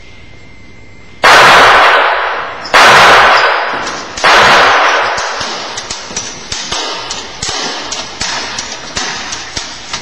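Three loud gunshots about a second and a half apart, each echoing away slowly, followed by a run of smaller, irregular sharp cracks.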